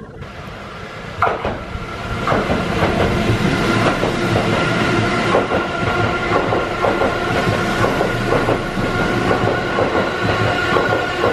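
Keihan 3000 series electric train running through a station at speed without stopping: a loud rumble of wheels on rail with a run of clacks over the rail joints and a steady high whine.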